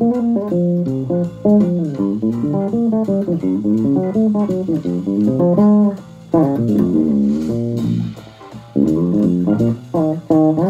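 Jazz Bass-style electric bass guitar played fingerstyle in a jazz solo: a fast line of single plucked notes that breaks off briefly about six seconds in and again around eight seconds.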